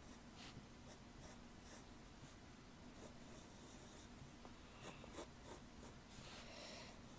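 Faint scratching of a yellow wooden pencil's graphite lead on drawing paper, in short sketching strokes one after another.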